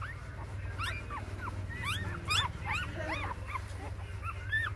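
Newborn puppies whimpering and squeaking: many short, high calls that rise and fall in pitch, thickest between about one and three seconds in, over a steady low hum.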